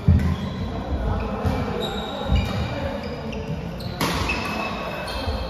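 Badminton doubles rally: shoes squeaking and feet thumping on the court as players move, with racket strikes on the shuttlecock, the sharpest about four seconds in.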